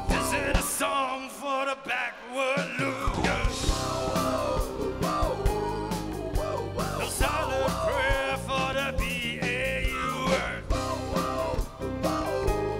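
Live rock band playing a song with a singer and drums; the bass comes in about two and a half seconds in.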